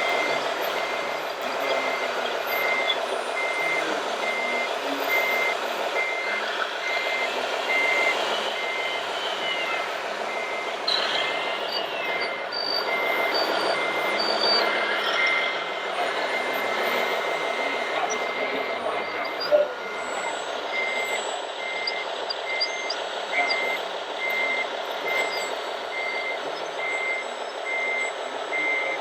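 Reversing beeper of a scale RC truck or construction model, a steady beep repeating about one and a half times a second. Under it runs a steady din with some rising and falling whines.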